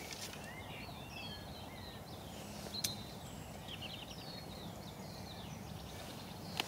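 A small songbird singing a quick, busy run of short chirps and whistles over a low steady outdoor hiss, with a single sharp click a little under three seconds in.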